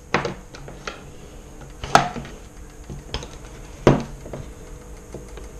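Hard plastic and metal gel blaster parts knocking and clicking against a wooden tabletop as they are handled, with two louder knocks about two and four seconds in.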